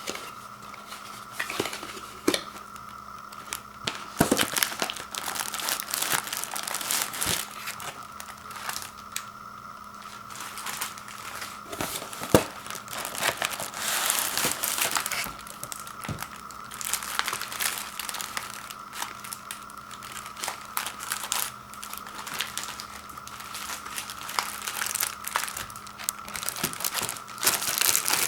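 Microwave popcorn packaging being opened and handled by hand: irregular crinkling and tearing of the box and the plastic-wrapped bags, in uneven rustles with sharper crackles, under a faint steady hum.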